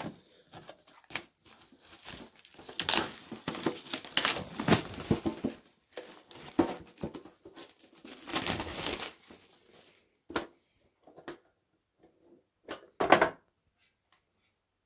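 Plastic shrink wrap crinkling and tearing as it is peeled off a metal candy tin, thinning to a few small clicks, then a sharp clack near the end as the tin's lid is pried open.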